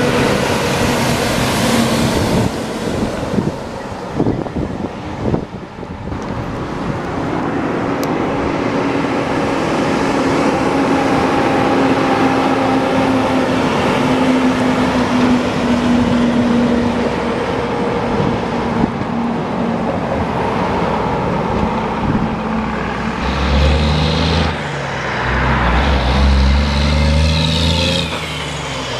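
Heavy diesel trucks passing close by one after another: semi-tractors hauling dump trailers, then a tandem-axle dump truck, with engine noise and tyre and road noise. A steady engine note holds through the middle, and near the end a deep engine rumble comes in with the pitch gliding up and down as a truck pulls through.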